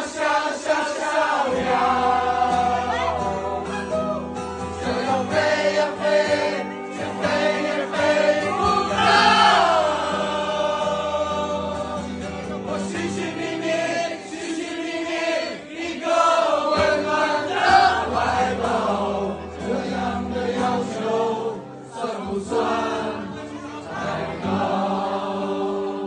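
A live pop song: a man singing into a microphone over acoustic guitar, with a crowd singing along loudly in unison.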